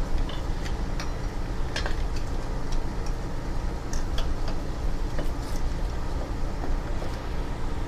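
Scattered light clicks and ticks from hands working among the motorcycle's plastic wiring connectors and frame, over a steady low rumble.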